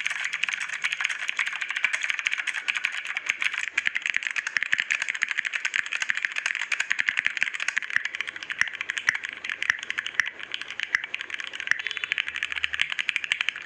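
Fast, continuous typing on a computer keyboard: a dense, steady stream of key clicks.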